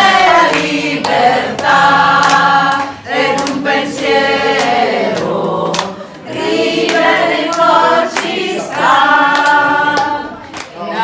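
A group of people singing together without instruments, in long held notes, with a few sharp clicks over the singing.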